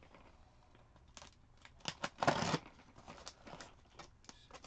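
Small taped cardboard shipping boxes being handled and turned over: scattered light taps, scrapes and rustles of cardboard, with one louder, short rustling scrape a little over two seconds in.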